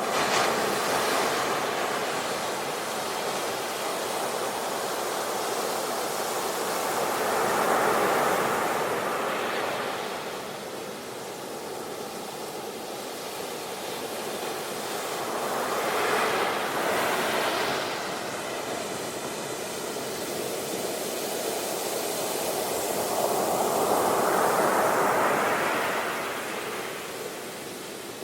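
Sea waves breaking on a beach, the surf swelling and ebbing, with four louder surges about eight seconds apart.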